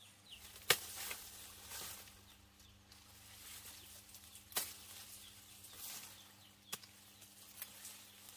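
Three sharp knocks a few seconds apart, with rustling in between, over a faint steady hum.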